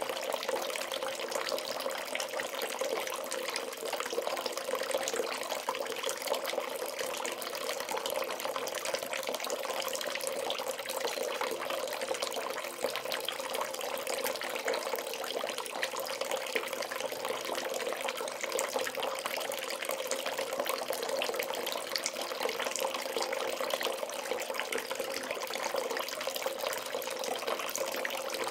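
Bathtub filling from a running tap: a steady stream of water splashing into the tub, with an even rushing sound throughout.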